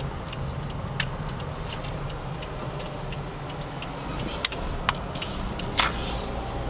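Car driving, heard from inside the cabin: a steady low engine and road rumble, with a few sharp irregular clicks and knocks, most of them in the second half.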